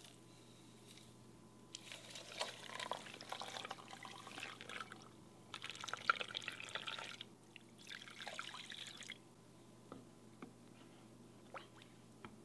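Liquid poured into a large pot over a seasoned raw pork shoulder to make a brine: a splashing stream in three spells. After the pouring there are a few light taps.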